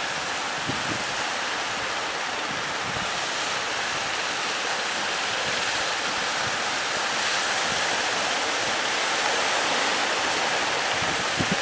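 Big sea waves breaking on the shore: a steady rush of surf that swells slightly about halfway through, with a brief low thump near the end.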